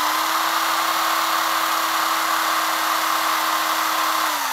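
WLtoys 12427 1/12 crawler's electric motor and gearbox whining steadily at full throttle, its wheels spinning freely with the car held off the ground, then spinning down near the end. This is a load test: the 2S LiPo's cell voltage sags while the motor runs.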